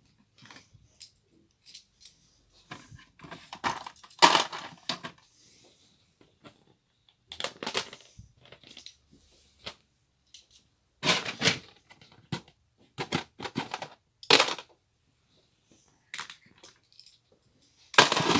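LEGO minifigures and small plastic pieces clicking and rattling as they are handled and sorted into drawers, in about half a dozen short bursts with quiet gaps between.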